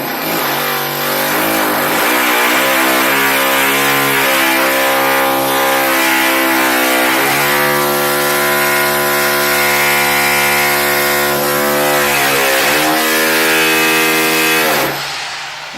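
Electric drill motor running with a steady whine. Its pitch sags and recovers twice, as under load, then it winds down near the end.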